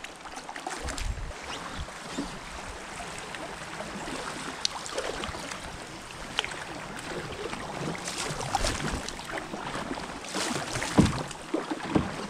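Canoe paddle strokes dipping and splashing in shallow river water, with water trickling along the hull. A louder sharp knock comes near the end.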